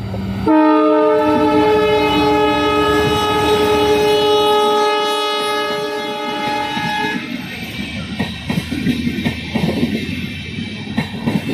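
WDP4D diesel locomotive sounding one long horn blast, a chord of several steady tones held for about six and a half seconds as it passes close by. After the horn stops, the express coaches roll past with a rhythmic clickety-clack of wheels over the rail joints.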